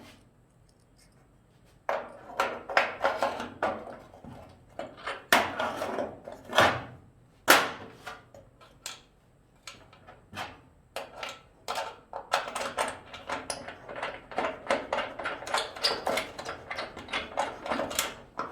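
Metal clinks, clicks and knocks of hand work on the hood hinge mount while the newly welded-on nut and back plate are test-fitted, coming in an irregular run that gets busier in the second half.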